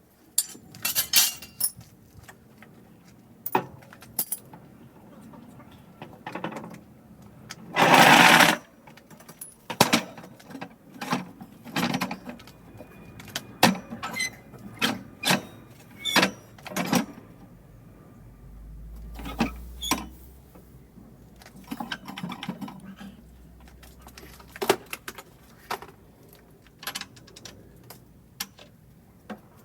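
Metal workbench parts being taken apart by hand: repeated clanks, knocks and rattles of tools, bolts and metal pieces. One louder rasping burst of about a second comes about eight seconds in.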